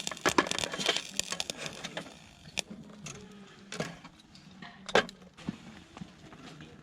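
Wooden clatter and knocks: a quick run of sharp knocks in the first second or two, then single knocks about a second apart.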